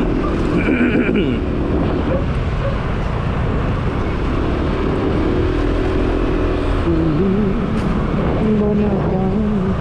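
Motor scooter riding along a road: its small engine running steadily under continuous wind and road rumble. A short high beep sounds about half a second in.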